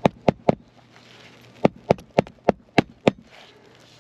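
Hammer driving a roofing nail through a brittle old asphalt shingle: three quick blows, a short pause, then six more blows about three a second.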